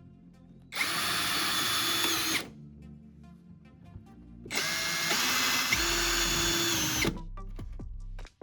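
Electric power drill running in two bursts of about a second and a half and two and a half seconds, with a steady high whine.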